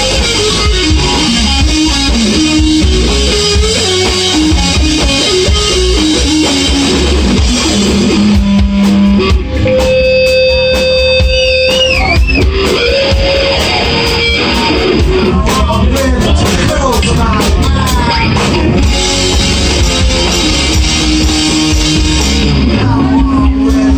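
Live rock band playing an instrumental stretch with no vocals: distorted electric guitar over bass and drum kit. Around the middle the guitar holds one long note that wavers near its end.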